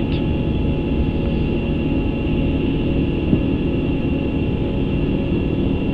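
Steady rumble and hiss of an Airbus A350 cockpit in climb with climb thrust set, with a few faint steady tones over it.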